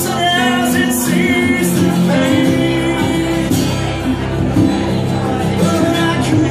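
Live band music: a drum kit with cymbal strikes under sustained melodic notes.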